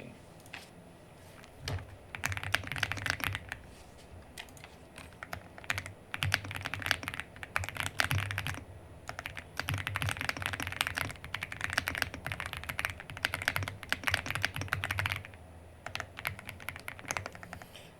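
Fast typing on an Aula F99 Pro mechanical keyboard, the keys clacking in quick runs. There is a short pause about four seconds in, and the typing trails off to a few scattered keystrokes near the end.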